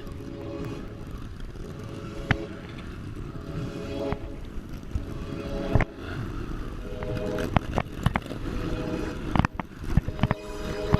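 Trail motorcycle engine running with a steady low rumble, broken by scattered sharp knocks and clatters.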